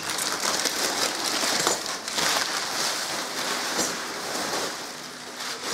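Crumpled packing paper rustling and crinkling as hands dig through it in a cardboard box, with many small crackles.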